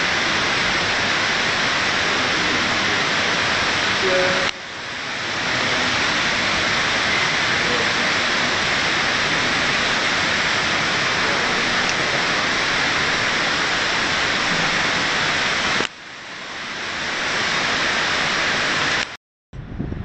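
Steady loud rushing of falling water, dipping briefly about four and a half seconds in and again near sixteen seconds, then cutting off just before the end.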